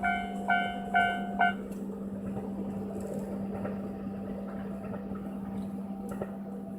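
Railway level-crossing warning bell chiming about twice a second, which stops about a second and a half in; a steady low hum carries on after it.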